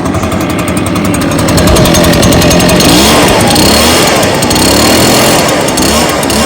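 Echo PB580T backpack leaf blower's two-stroke engine revved up from a warm idle: the pitch climbs about two seconds in, eases briefly in the middle, climbs again, then drops back near the end.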